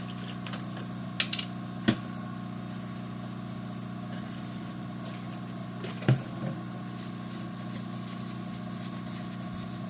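Steady low mechanical hum from electronics-repair bench equipment. Sharp small clicks and taps of tools on the circuit board come about a second in, again near two seconds, and once around six seconds.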